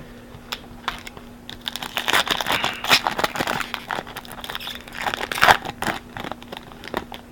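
A trading card pack's wrapper crinkling and tearing as it is opened by hand, a dense run of irregular crackles that is loudest a little past the middle, over a faint steady hum.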